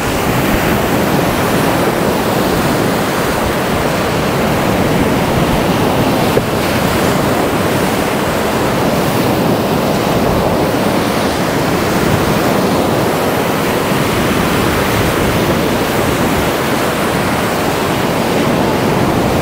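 Atlantic surf breaking and washing up the sand at the water's edge, a steady rushing noise that swells and eases with each wave, with wind buffeting the microphone.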